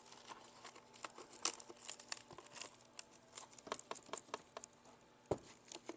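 Cardboard and paper packaging being handled: faint, irregular rustling and crinkling with small taps, and one sharper knock about five seconds in.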